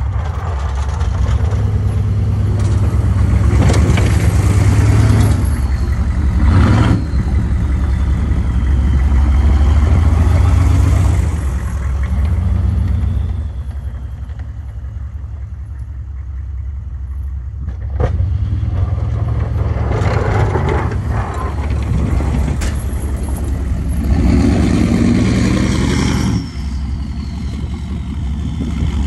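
Straight-piped 6.5 L Detroit turbo-diesel V8 of a Chevy K2500 working under plowing load, its note rising and falling as the throttle comes on and off, with a faint turbo whistle gliding in pitch at times. A couple of sharp knocks stand out, once about a third of the way in and again past the middle.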